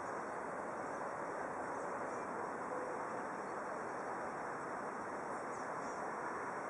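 Steady outdoor background noise, even and without clear events, with a few faint high bird chirps near the end.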